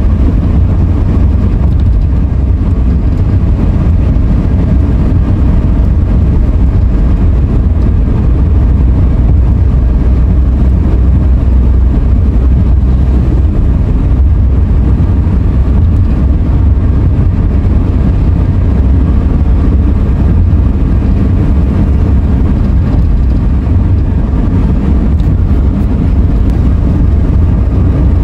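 Car driving on the open road: a steady, deep rumble of road and engine noise.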